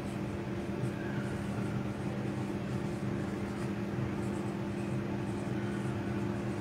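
A steady low electrical hum over room noise, with faint squeaks and scratches of a marker writing on a whiteboard.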